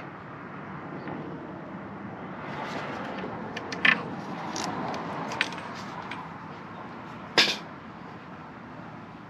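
Hand tools working on an engine: a few sharp metallic clicks and clinks, the loudest two about four and seven and a half seconds in, over a steady background hiss.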